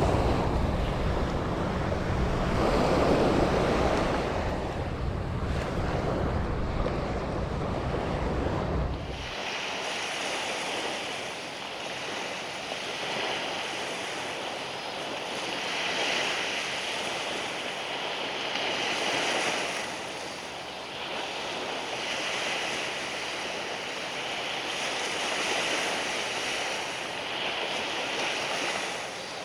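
Waves breaking and washing on a sandy beach, with wind buffeting the microphone. About nine seconds in, the wind rumble stops abruptly, leaving the hiss of surf swelling and fading every few seconds.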